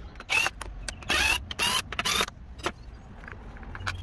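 Several short bursts of rattling and scraping in the first two seconds, then a scatter of light clicks: hand tools and metal parts at work on the inlet manifold bolts of a Rover KV6 V6 engine.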